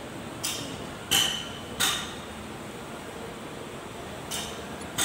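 Sharp metallic clinks of a box wrench and flat screwdriver working the locknut and adjusting screw on a valve rocker arm of a two-cylinder diesel engine while the tappet clearance is set: three clinks in the first two seconds, then two more near the end.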